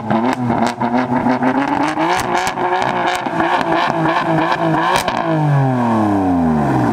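BMW M3 (F80) twin-turbo straight-six revved repeatedly from the quad tailpipes, with sharp pops and crackles from the exhaust. Near the end the revs fall away.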